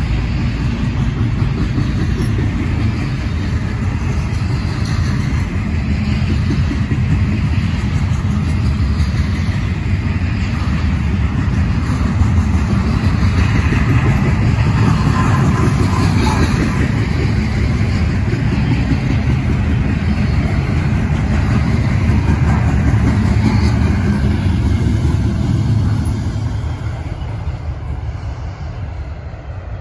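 Freight train rolling past: a steady, loud rumble of steel wheels on rail that drops off about 26 seconds in as the train moves away.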